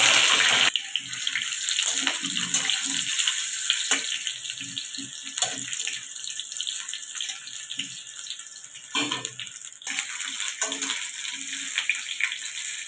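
Potato chunks sizzling in hot oil in a kadai: a loud hiss in the first moment as they go in, then a steadier sizzle, with the spatula knocking and scraping against the pan as the potatoes are turned.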